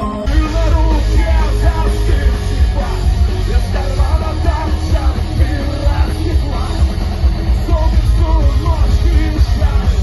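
A live punk rock band playing loud, with heavy drums and bass under shouted vocals.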